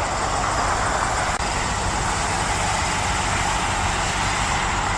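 Steady rushing spray of water washing mud off a toy.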